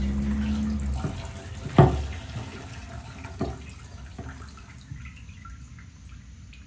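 Gasoline trickling and dripping from a freshly removed fuel pump module back into the fuel tank. A low hum stops about a second in, and a sharp knock comes about two seconds in.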